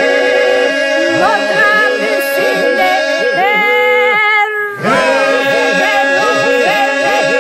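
Albanian Lab iso-polyphonic singing: a group holds a steady drone (iso) beneath solo voices that waver and ornament above it. The voices break off briefly about four and a half seconds in, then come back in over the drone.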